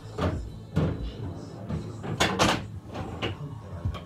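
A series of about six sharp knocks and clacks, two of them close together a little past the middle.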